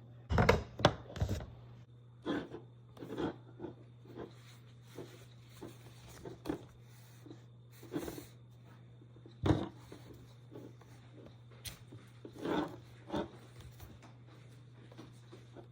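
Irregular light taps and knocks, a quick cluster at first and then one every second or so, over a steady low hum.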